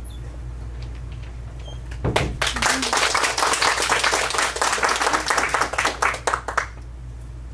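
Audience applauding, starting about two seconds in and thinning to a few last claps before stopping.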